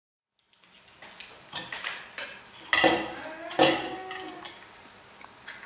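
Hard plastic clicks and clatter of a LEGO brick yoyo being handled on a wooden table, with two louder knocks about three seconds in, each followed by a brief ringing tone.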